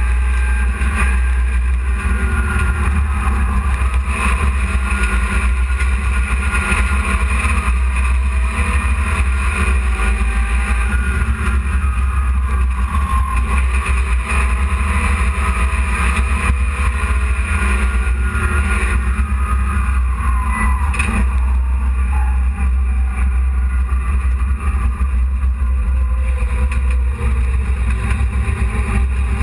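Dirt-track hobby race truck's engine running on the track, heard from inside the cab: a loud, steady low rumble with a constant noisy rush over it.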